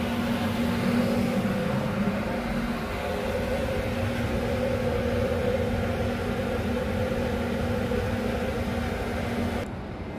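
Steady machinery hum aboard a container ship, with a low drone in it. It drops abruptly in level near the end.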